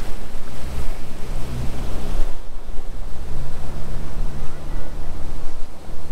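Wind buffeting the microphone over water lapping, with the steady low drone of the boat's outboard motor as it runs away from the microphone.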